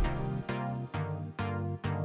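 Electronic background music with a steady pulse of held synth notes struck about twice a second.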